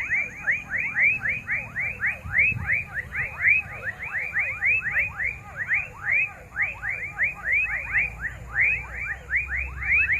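Dusk chorus of many small animals calling together: a dense, overlapping run of short chirps, each rising and then falling in pitch, several a second. A steady thin high whine lies under them.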